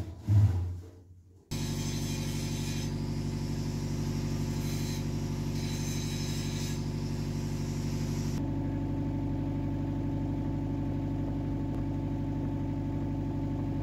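A couple of knocks, then a steady mechanical drone like a running engine, with a fainter high whine that comes and goes during the first half.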